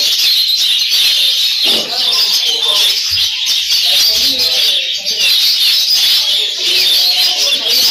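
Dense, unbroken chirping of many small caged birds, with people's voices murmuring underneath.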